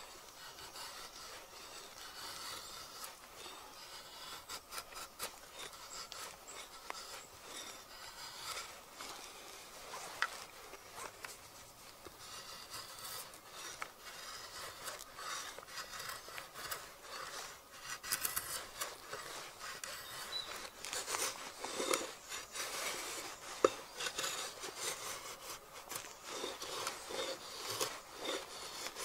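Drawknife shaving the edge of an oak board in repeated short scraping strokes, which come thicker and louder in the second half.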